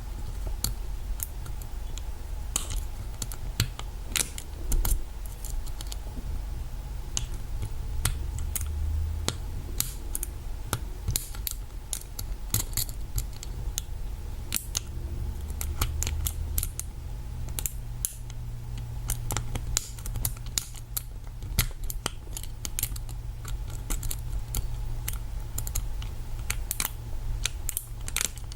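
Lock pick and tension wrench working the pins of a Master Lock lockout/tagout safety padlock: irregular small metallic clicks and scrapes as the pins are single-pin picked, over a steady low hum.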